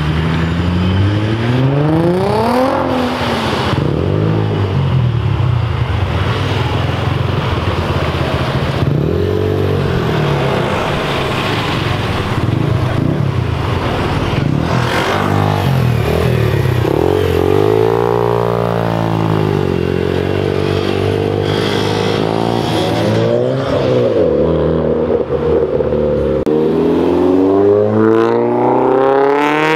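Modified cars, among them a Nissan 350Z's V6 and Ford Fiestas, accelerating away one after another. Their engines rev up and drop back repeatedly, with a burst of revving in the middle and a rising rev near the end.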